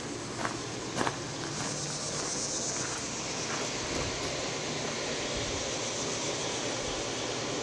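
Outdoor ambience with steady high-pitched insect buzzing that swells for a couple of seconds early on, plus two short knocks in the first second.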